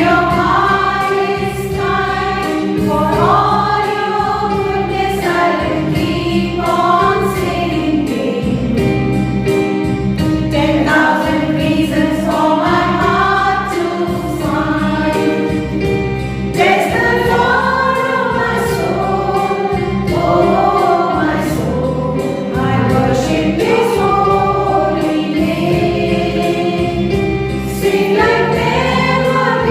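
A choir singing a melodic song over instrumental accompaniment with a steady beat.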